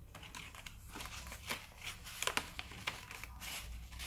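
Paper rustling and crinkling as a folded letter is unfolded and slid against a paper envelope pocket, a scatter of short crackles and taps, a couple of them louder about two seconds in.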